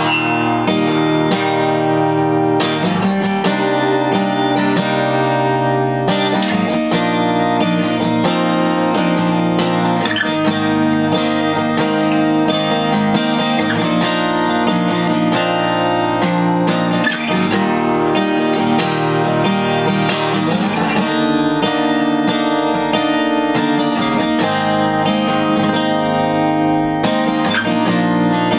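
Overdrive F-41C 41-inch cutaway steel-string acoustic guitar, played acoustically, with chords strummed continuously in a steady progression.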